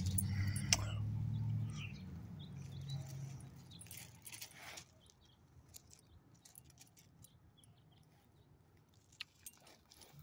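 A passing car's engine and tyre noise fades away over the first two seconds. After that come faint scattered clicks and rustles from a dog moving on gravel.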